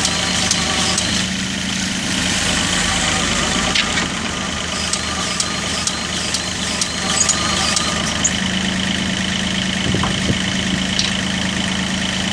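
Wacker Neuson 3.5-tonne excavator's diesel engine idling steadily, with scattered sharp clicks over it and a low knock about ten seconds in.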